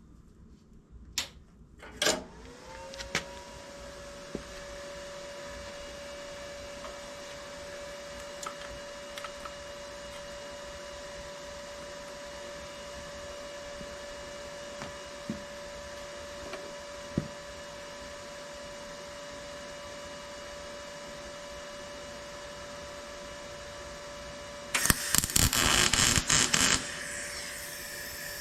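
A welder is switched on with a couple of clicks and a hum starts, rising quickly in pitch and then running steady. Near the end there are about two seconds of loud crackling from the welding arc as the torque converter's steel alignment piece is welded.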